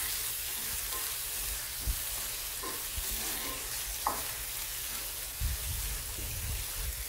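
Sliced onions and spice paste sizzling in oil in a non-stick frying pan while a spatula stirs and scrapes through them, with a few sharp taps of the spatula on the pan.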